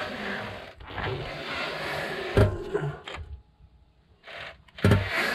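Yanmar GM10 single-cylinder marine diesel being turned over with its hand crank while its pulled injector fires into a container: a mechanical scraping rattle with one sharp knock about two and a half seconds in, then a short lull before it picks up again. The injector is being checked for hard starting, and it seems to squirt rather than atomise.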